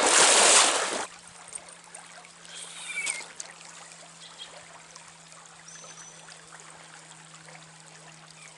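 Trout stream water running and trickling. It rushes loudly for about the first second, then drops off abruptly to a quieter, steady trickle.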